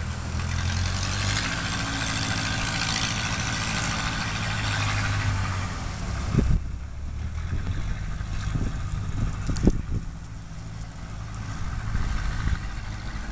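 A steady low engine hum, with a rushing hiss over it that drops away about six and a half seconds in, and a few short knocks.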